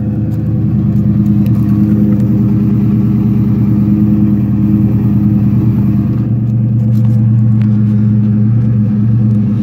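2004 Ford Mustang GT's 4.6-litre V8 idling steadily after a cold start, heard at the rear of the car near the exhaust. Its low note grows stronger about six seconds in.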